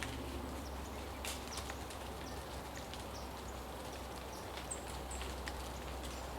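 River ambience: a steady low rush of flowing water with scattered light ticks and drips, and two short high chirps near the end.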